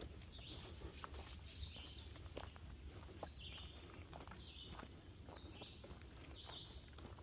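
Footsteps crunching on a trail at a steady walking pace, about one step a second, over a faint low rumble.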